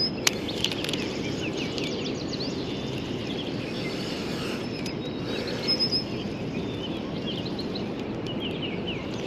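Steady rush of flowing river water, with small birds chirping over it.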